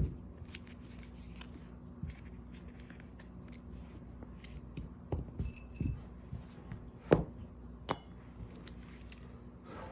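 Small metal tools and sockets being handled and set down: scattered light clicks and taps, with a short ringing metal clink about five and a half seconds in and another near eight seconds.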